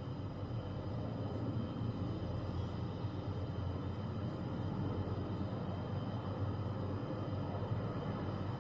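Concorde's Olympus 593 turbojets on landing approach: a steady jet rumble with a low drone and a faint high whine over it.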